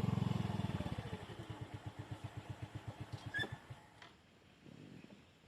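A motorcycle engine is switched off: its firing pulses slow down and die away over about three seconds, with a short click near the end.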